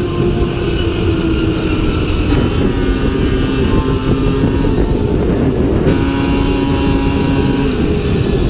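Snowmobile engine running at steady high speed under the rider, with a dense rumble of track and wind noise. Its tone eases slightly lower and shifts a few times.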